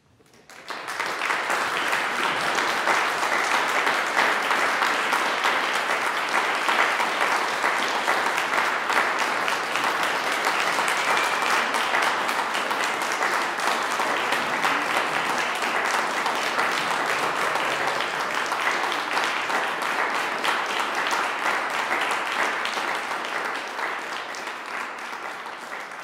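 Audience applauding: the clapping swells in within the first second, holds steady, and begins to fade near the end.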